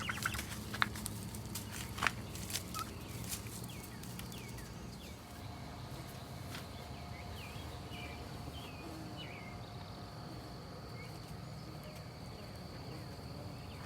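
Young turkeys peeping in short, falling calls, with a few clicks and knocks in the first seconds. A faint, steady high tone comes in about six seconds in.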